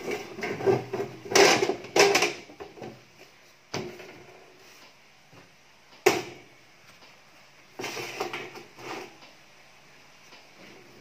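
Steel frame and sheet-steel plate being handled on a workbench: a cluster of metal clunks and scrapes in the first three seconds, then sharp single knocks about four and six seconds in as a caster wheel is set down on the steel plate, with a few softer knocks later.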